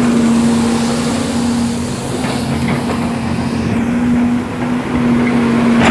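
Excavator diesel engine running steadily under a constant hum, with a short dip in level near the end.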